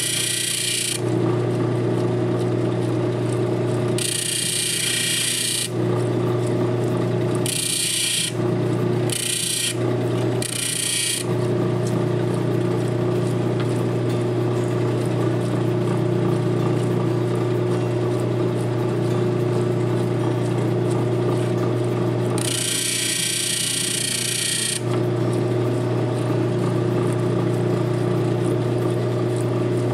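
Lapidary faceting machine's motor running steadily with a constant hum, while a gemstone is pressed against the spinning lap in several short grinding, scratchy spells of one to two seconds, the longest about two seconds long, near the start, then in quick succession around eight to eleven seconds in, and again later.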